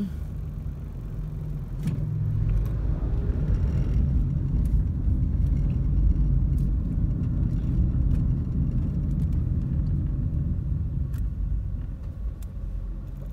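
Low rumble of a car's engine and tyres heard from inside the cabin while driving, growing louder about two seconds in and easing off near the end.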